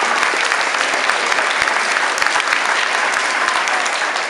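Large crowd of children and parents applauding, a dense, steady clatter of many hands clapping.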